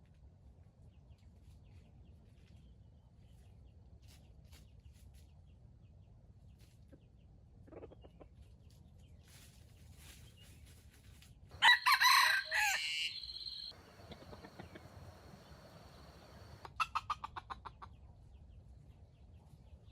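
A rooster crows once, loud and about two seconds long, and a few seconds later gives a quick run of clucks.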